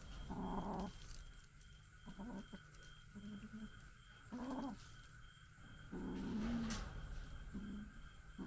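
Kittens growling over food in about half a dozen short, low growls, the longest about a second long near the end: food-guarding growls.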